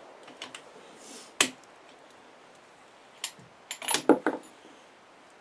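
Sharp metallic clicks and clinks from handling the .338 Lapua Magnum bolt-action rifle and its cartridges between shots. One loud click comes about a second and a half in, another after about three seconds, then a quick cluster of clicks and clinks near the end.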